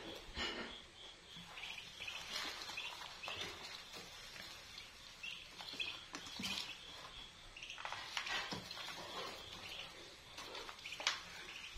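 A brood of three-day-old ducklings peeping, many short high peeps overlapping, with scattered clicks and taps as they peck at feed in a bowl.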